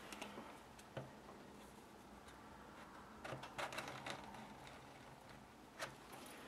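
Faint handling sounds: a few light clicks, and a short cluster of scraping about three to four seconds in as the plastic solder paste spreader is drawn over the kapton stencil to scrape off excess paste.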